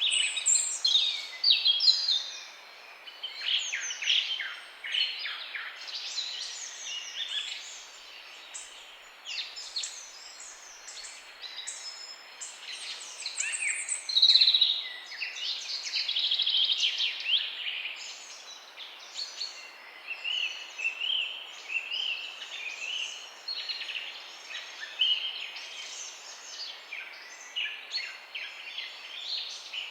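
A morning chorus of several songbirds singing and chirping at once, overlapping trills and quick whistled notes, busiest and loudest in the first two seconds and again about halfway through.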